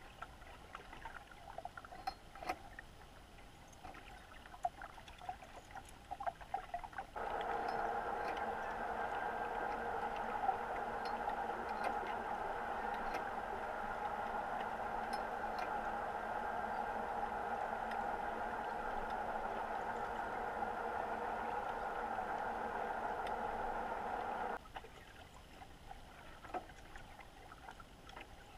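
Underwater recording: faint scattered crackling clicks, then a steady motor hum that starts abruptly about seven seconds in, holds level for about seventeen seconds and cuts off abruptly, leaving the clicks again.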